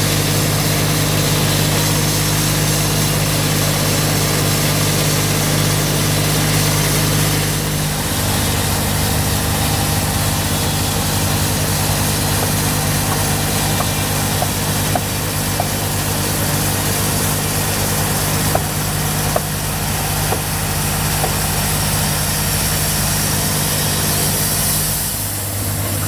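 Large engine-driven band sawmill running steadily while its blade cuts through a chestnut log. The machine's sound changes about eight seconds in, and a few light knocks come in the second half.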